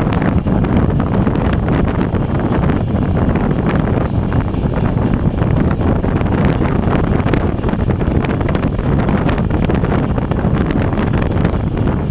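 Wind buffeting the microphone held out of the window of a moving passenger train, over the steady running noise of the train on the rails, with many small scattered clicks.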